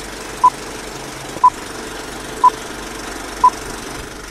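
Film countdown leader sound effect: a short high beep once a second, four times, over steady whirring film-projector noise.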